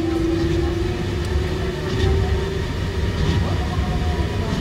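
Osaka Monorail 2000 series train running, with a steady low rumble from the rubber-tyred monorail. Over it is a motor whine that rises slightly in pitch and fades out a little past halfway.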